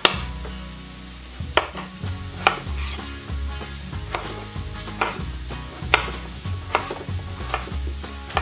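Chef's knife cutting through peeled raw potato and striking a wooden cutting board: about nine sharp knocks, roughly one a second, as the potato is sliced and then diced.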